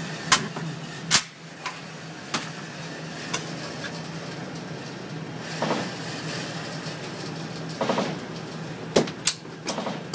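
Gunshots at an indoor shooting range: single sharp cracks at irregular intervals, then three in quick succession near the end, over a steady ventilation hum.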